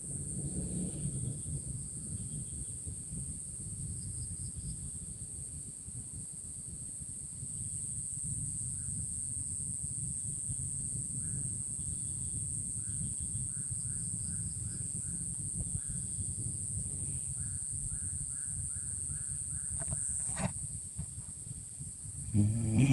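Riverbank ambience: a steady high-pitched insect drone over a low rushing rumble. In the middle come runs of short, quick animal calls, several a second, and near the end a sharp click.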